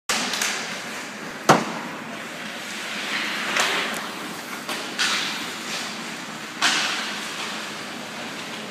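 Sounds of ice hockey play in an echoing rink. A single sharp crack of a stick on a puck comes about a second and a half in, and skate blades scrape across the ice several times.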